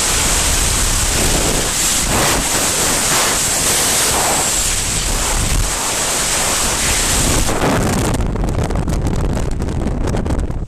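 Loud, steady wind rushing over the microphone in skydiving freefall. The high hiss thins out about eight seconds in.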